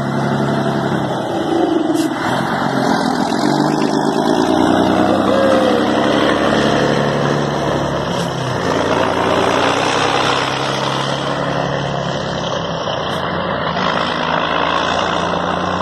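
Scania 113 bonneted truck's diesel engine pulling away with a trailer. The engine note climbs and drops back at each gear change, several times, as the truck drives past and away.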